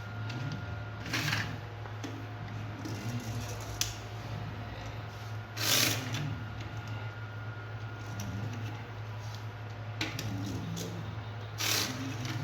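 Small toy vehicles being handled: scattered clicks and three short rattles, over a steady low hum.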